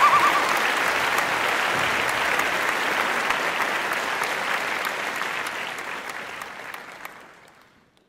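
Applause, a crowd clapping, that fades out toward the end. A warbling, bird-like whistle trails off in the first moment.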